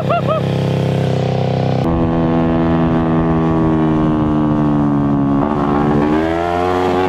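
Kawasaki Ninja 250 parallel-twin motorcycle engine powering an off-road shifter kart buggy, running under way. After a sudden change about two seconds in, its pitch eases down for a few seconds, then climbs again near the end as it accelerates.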